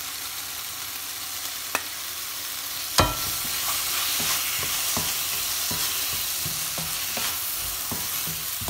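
Celery, pineapple and mushroom pieces sizzling in a hot stainless steel pan while a wooden spatula stirs them, knocking and scraping against the pan. A sharp knock about three seconds in is the loudest sound, after which the sizzling gets louder and the stirring knocks come about twice a second.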